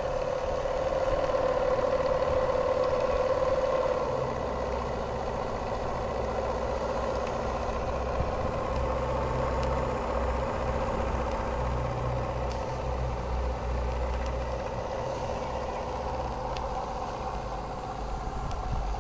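Martin Balis twin-cylinder model steam engine running steadily under steam at about 25 psi boiler pressure, with a steady hiss and a steady tone that weakens about four seconds in.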